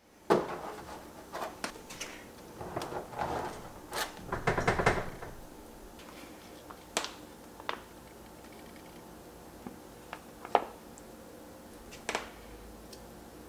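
Plastic packaging crinkling and rustling while it is handled and opened, loudest in the first five seconds, followed by a few light taps and clicks.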